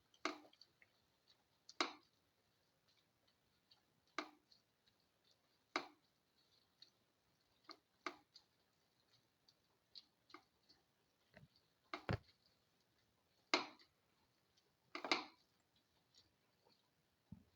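A stirring utensil knocking and clicking against a cooking pan while tomato pieces are sautéed and mixed. About a dozen sharp, separate knocks come a second or two apart, with the loudest few near the end.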